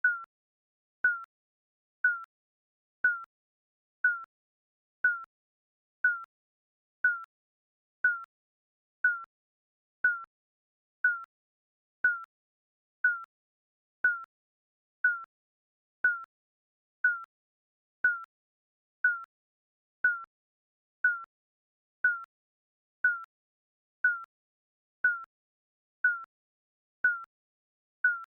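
Digital countdown timer beeping once a second: a short, high electronic blip that dies away at once, with silence between.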